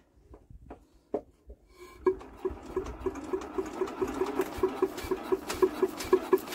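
Lister Petter diesel generator engine being hand-cranked: after a few light clicks it turns over with a rhythmic chuffing of about four to five beats a second, picking up slightly, but never fires. It is a non-start, with no smoke coming from it.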